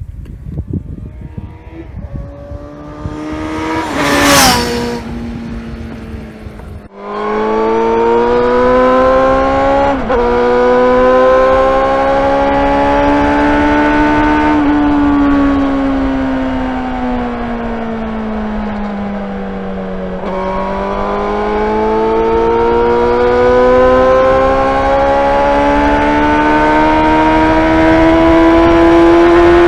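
Suzuki GSR 600's inline-four engine, derived from the GSX-R600's, revving high at speed on the road: the pitch climbs with a brief dip around ten seconds in, sags between about fourteen and twenty seconds in as the throttle eases, then climbs steadily again. Earlier there is a loud rushing sound about four seconds in.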